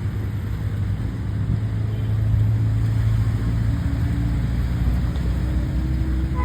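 Speedboat engine running with a steady low drone that grows louder about two seconds in, its pitch edging up near the end.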